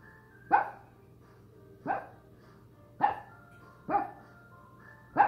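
A small dog barking in single sharp barks, five of them about a second apart, at a stuffed toy dog it takes for a real puppy.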